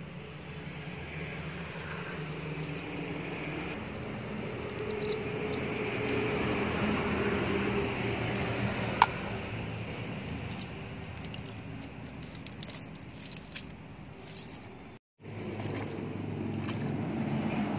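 Small clicks and rustles of a nylon cast net being handled as fish are picked out of it, over a steady low outdoor rumble, with one sharp click about nine seconds in. The sound cuts out briefly near the end and gives way to wind on the microphone and moving water.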